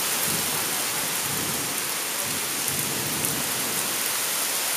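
Heavy thunderstorm downpour: a steady hiss of rain pouring down.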